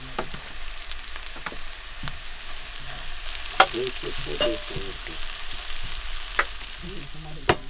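Grated carrots frying and sizzling in a cast-iron frying pan while a wooden spatula stirs them. The spatula knocks sharply against the pan three times.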